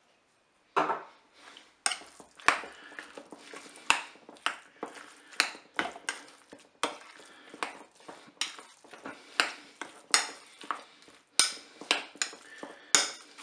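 A metal spoon stirring wet minced-meat stuffing in a glass bowl, clinking and scraping against the glass in quick strokes of about two a second. The stirring starts about a second in.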